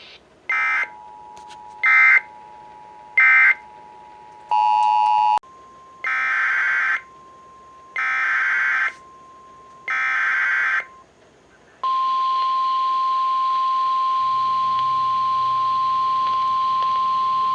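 Emergency Alert System SAME data bursts: three short screechy end-of-message bursts about a second apart, a brief chord of steady tones, then three longer header bursts announcing the next alert. They are followed by the NOAA Weather Radio warning alarm, one steady high tone held for several seconds.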